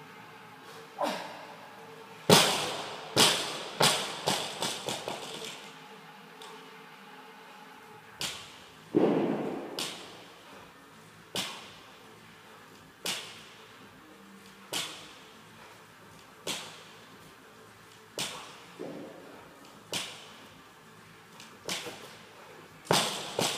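Eleiko barbell loaded with rubber bumper plates dropped onto a rubber gym floor about two seconds in, bouncing and rattling several times as it settles. It is then lifted for deadlift reps, the plates hitting the floor once about every 1.7 seconds, and it is dropped again with a few bounces near the end.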